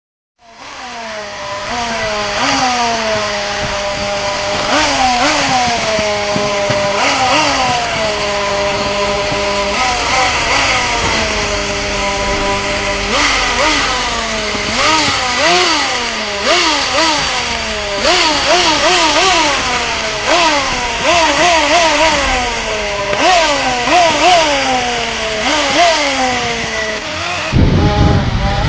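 Small engine on a tracked vehicle idling and being blipped again and again, each rev rising quickly and falling back. A low rumble comes in about a second before the end.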